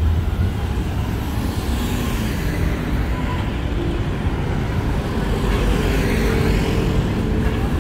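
Steady city road traffic: vehicles running past with a continuous low rumble.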